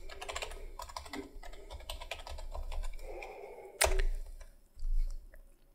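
Computer keyboard typing: a quick run of keystrokes entering a password, then one louder, sharper click a little under four seconds in, followed by a low dull thump.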